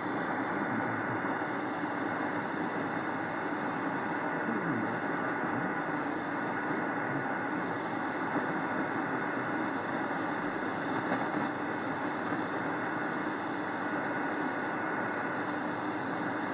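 Belka-DSP shortwave receiver in AM mode on 5980 kHz, giving a steady hiss of band noise with a faint steady whistle. The weak signal of a distant broadcast station is barely audible above the noise.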